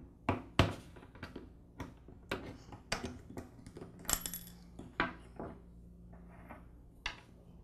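Small metal clicks and clinks, a dozen or so at irregular intervals, as a screwdriver pries the C-clip off the plunger shaft of a Ryobi 132R string trimmer's bump head and the plunger parts are handled.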